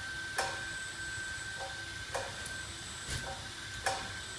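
Four sharp knocks at irregular intervals, roughly a second apart, over a steady high-pitched hum.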